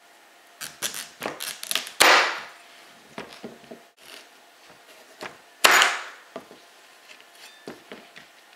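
L.T. Wright Camp Kitchen knife slicing through acorn squash rind and striking the plastic cutting board: a run of small knocks and clicks, with two loud chops about three and a half seconds apart, each trailing off in a short crunch.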